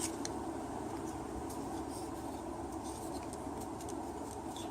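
Small plastic parts of a dashboard compartment latch being worked into place, giving a few faint clicks, over a steady background noise.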